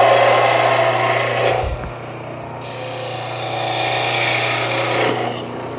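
Wood lathe running with a steady hum while a turning chisel cuts across the end of a spinning wooden cylinder to square it. There are two cuts: one of about a second and a half, a short pause, then a second of about three seconds that stops near the end.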